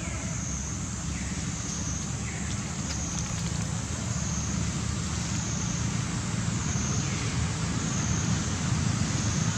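Wind rumbling on the microphone, steady and growing slightly louder, under a high, even drone that swells and fades about once a second.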